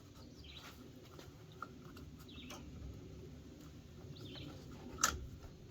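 Light clicks of a plastic bump-feed string trimmer head being opened and handled, the loudest a single sharp click near the end. A few faint bird chirps sound in the background.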